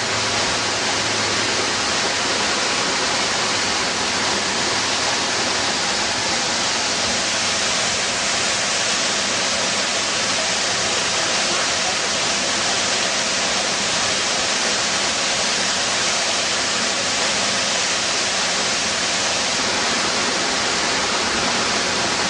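Steady rush of water tumbling over boulders in a rocky stream, an even hiss that does not change.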